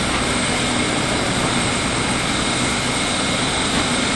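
Loud, steady drone of running engines with a constant high whine, unbroken throughout.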